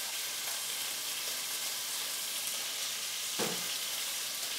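Pork chops sizzling steadily in hot oil in a pot.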